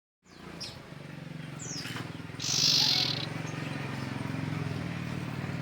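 Common iora (cipoh) calling: short high falling notes, then a loud, dense high trill about two and a half seconds in. A low steady hum runs underneath.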